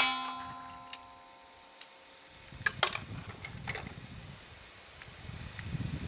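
Revolver action clicking: several sharp metallic clicks about a second apart, two of them close together about three seconds in. A metallic ringing fades out over the first second or so.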